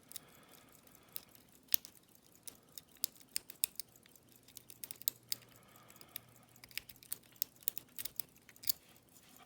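Small metal lock-picking tools clicking and scraping in a Corbin wafer cabinet lock. A tension wrench and snake rake work the wafers, making irregular sharp little clicks.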